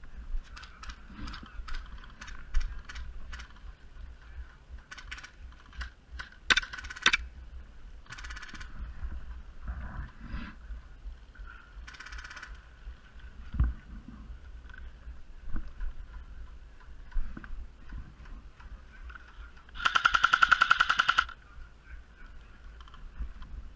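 Airsoft guns firing: scattered single shots and short rapid strings throughout, with the loudest, a rapid full-auto burst a little over a second long, about twenty seconds in.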